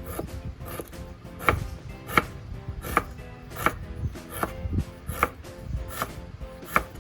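Knife chopping on a cutting board in a steady rhythm, about one stroke every three quarters of a second, over background music.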